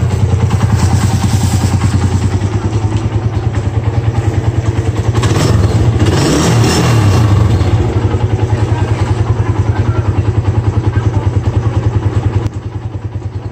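Suzuki Raider 150's single-cylinder four-stroke engine running at idle with a rapid, even pulse on its test run after a new timing chain, chain guide and cam timing. Its revs rise and fall once about halfway through.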